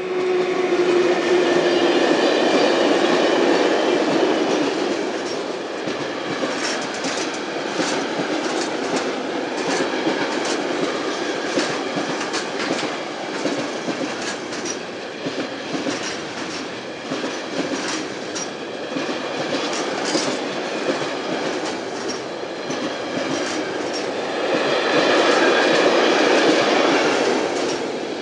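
Container freight train hauled by a Siemens ES64 electric locomotive passing close by: a steady hum for the first couple of seconds as the locomotive goes past, then the rumble and clickety-clack of the wagon wheels on the rails, with frequent sharp clicks. The sound swells louder again near the end.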